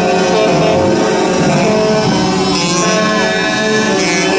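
Many vehicle horns, including truck air horns, blaring together in a continuous, loud, many-pitched din, with a few tones sliding up and down over it.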